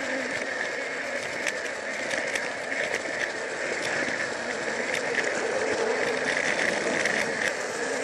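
Plarail battery-powered toy train running on plastic track, heard from a camera riding on it: the steady whir of the small motor and gearbox with scattered small clicks.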